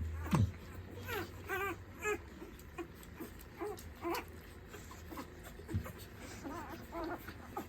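American Bully puppies whimpering: a string of short, wavering high-pitched cries, repeating every half second to a second.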